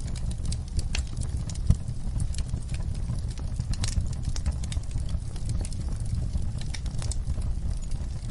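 Wood fire burning in a fireplace: a steady low rumble of the flames with irregular crackles and pops from the burning logs, one louder pop about two seconds in.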